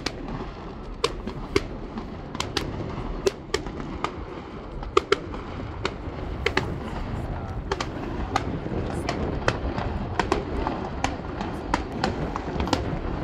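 Fireworks display: sharp bangs and cracks of shells bursting, irregular, about two a second, over a steady low background rumble.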